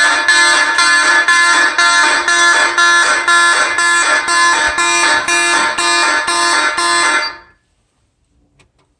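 Federal Signal 450D Vibratone fire alarm horns sounding in march time, loud buzzing pulses about twice a second, that cut off abruptly about seven seconds in as the alarm is silenced.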